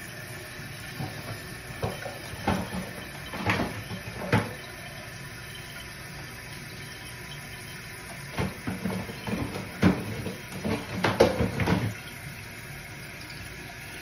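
Toilet tank refilling through a newly installed fill valve: a steady hiss of water running into the tank. Two spells of louder, irregular sharp sounds break in, one in the first third and one after the middle.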